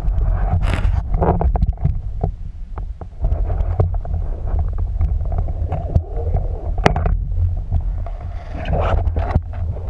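Muffled underwater rumble of water moving around the camera, with scattered sharp clicks and knocks, the clearest about a second in and near seven seconds.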